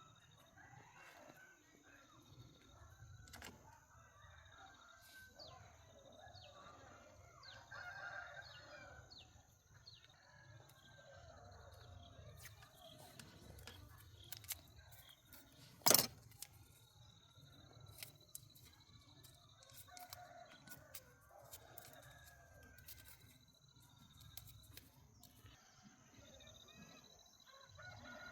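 Faint animal calls, with scattered light clicks and one sharp knock about halfway through.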